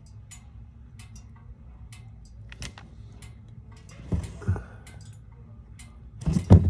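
Light clicks and taps of hand tools and metal parts being handled, with two knocks about four seconds in and a louder clunk near the end, over a low steady hum.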